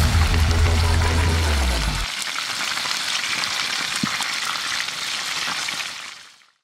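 Food sizzling and crackling in hot oil, a steady hiss with scattered pops that fades out near the end. A deep bass note from the intro music sounds under it and stops abruptly about two seconds in.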